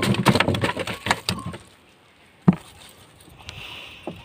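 Crackling, rustling handling noise in a styrofoam fish cooler, dense for about the first second and a half, then a single sharp knock about two and a half seconds in.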